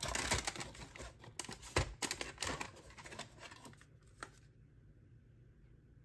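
A cardboard box flap is pulled open and a wrapped part is lifted out, with crinkling and rustling of cardboard and plastic. There is one sharper knock about two seconds in, and the handling stops after about four seconds.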